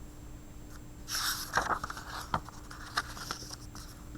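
Paper rustling with a few light clicks as a picture-book page is turned.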